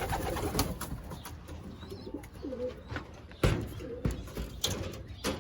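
Racing pigeons cooing in a loft, a few low rolling coos, with a couple of sharp knocks.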